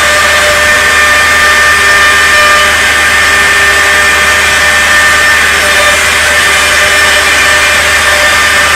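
Comeva CNC door lock and hinge machine running, its spindle cutting wood with a steady high whine over a loud, even noise.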